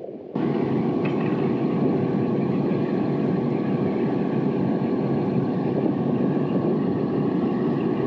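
Steady mechanical running noise of air-conditioning machinery, a rushing hum with a faint steady tone through it, coming on abruptly just after the start.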